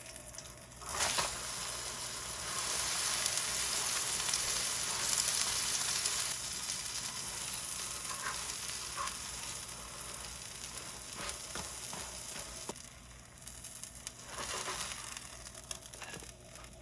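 Food sizzling in a hot frying pan. The sizzle grows louder a few seconds in and eases off toward the end, with a few light clicks.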